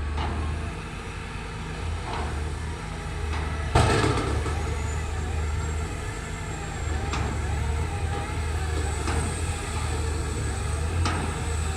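Heavy construction machinery running with a steady low engine hum, with sharp knocks every two seconds or so, the loudest about four seconds in.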